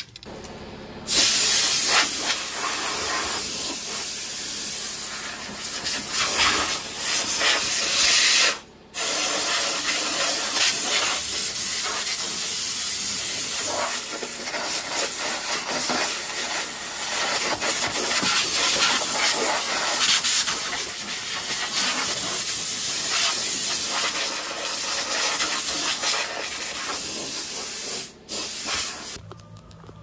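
Compressed air hissing from an air hose's blow gun in long continuous blasts as dust is blown off the back of a tractor. The blast stops briefly about nine seconds in, then runs on and stops shortly before the end.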